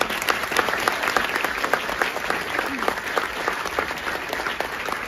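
Audience applause: many hands clapping at once in a steady, dense patter.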